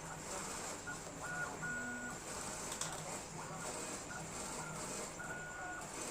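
CO2 laser cutting and engraving machine at work: its motors whine at one fixed pitch in short stop-and-start moves of varying length, over a steady background hum.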